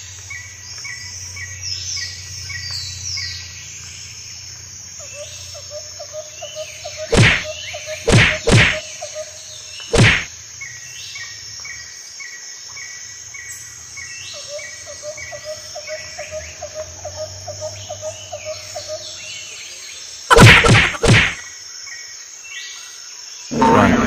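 Forest ambience: birds chirping and insects trilling over a steady high insect tone. It is broken by heavy thuds, four around the middle and two more near the end. Music starts right at the end.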